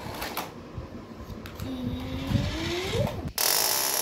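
A toy remote-control car's small electric motor whirring, its pitch holding and then rising. About three seconds in it is cut off suddenly by a loud, steady hiss.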